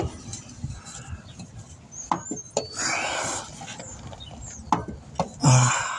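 Scattered light clicks, taps and scraping as hands work on the metal fittings and bolts of a car's AC compressor from underneath, with two short rustling noises, one about halfway through and one near the end.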